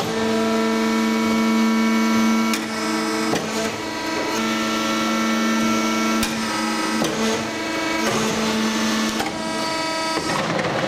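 WEIMA TH 1500 hydraulic briquetting press running on aluminium chips: a steady hydraulic hum whose pitch shifts slightly every few seconds as the pressing cycle moves on, with a few short clicks at the changes.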